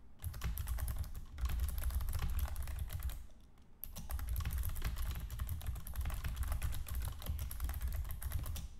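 Fast typing on a computer keyboard, a dense run of key clicks that stops briefly about three seconds in and then carries on.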